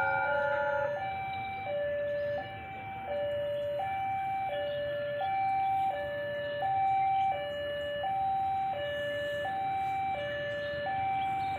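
Railway level-crossing warning alarm sounding a steady two-tone alternation, high then low, each tone lasting about 0.7 s. A ringing chime of several tones cuts off about a second in.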